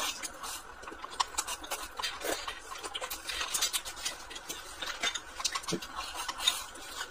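Wooden chopsticks clicking and scraping against a glass rice bowl as rice is shovelled into the mouth, with chewing: a run of small, faint clicks and scrapes.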